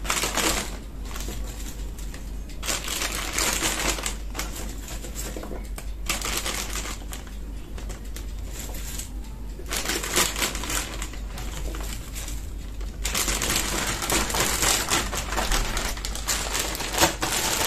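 A plastic sandwich bag crinkles and rustles as handfuls of whole peeled garlic cloves are dropped into it. The rustling comes in several bursts a few seconds apart.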